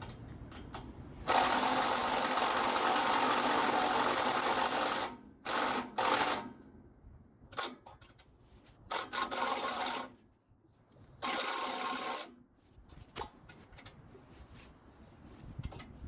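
Cordless power drill running in bursts while driving fasteners: one long run of about four seconds, then several short runs a second or so each.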